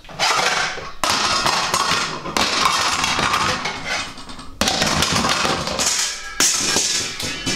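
Loud, drum-heavy music that starts abruptly and changes suddenly several times, about every one to two seconds.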